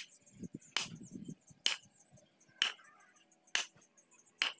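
Sharp clicks about once a second, evenly spaced, over a continuous high, rapidly repeating chirping.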